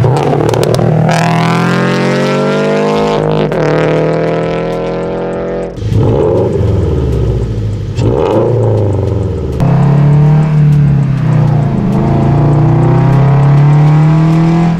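Subaru BRZ's 2.4-litre flat-four through a Tomei titanium dual-exit cat-back exhaust, pulling hard with the revs climbing, a gear change about three and a half seconds in, and then settling to a steadier cruise in the second half. The owner likens the sound to a Subaru STI.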